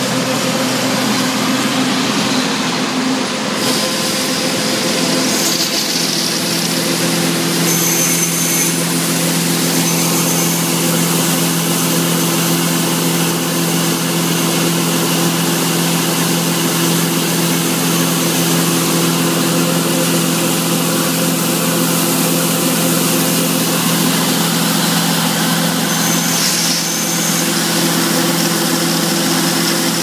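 John Deere 9570 STS combine running close by, with its unloading auger running and shelled corn pouring from the spout into the semi trailer. A steady engine hum sits under an even hiss, and the hum grows stronger about six seconds in.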